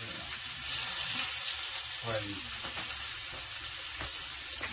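Thin smashed hamburger patty sizzling as it fries on an oiled griddle pan over stove burners: a steady high hiss, with a few faint clicks.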